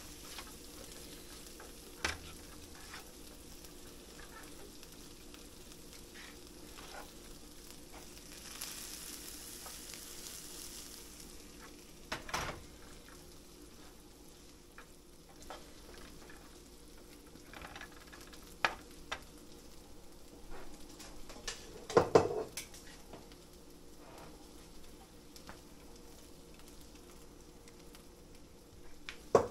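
Spaghetti and mackerel sizzling in a frying pan while being stirred and tossed with a slotted spoon. A handful of sharp knocks of the utensil against the pan, the loudest ones about halfway through and about two-thirds through.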